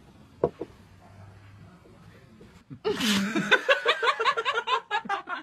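A glass knocks once on a wooden tabletop about half a second in. About three seconds in, a person bursts into laughter, rapid ha-ha pulses several times a second that continue to the end.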